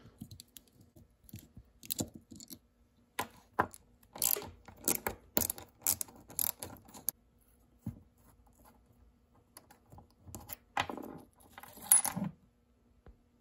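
Light clicks and clinks of small metal parts (bolts, hex key, pulley and cage pieces) being handled and set down as a Suntour AR rear derailleur is taken apart by hand. The clicks come in scattered bunches, busiest through the middle, with one sharp click near the end.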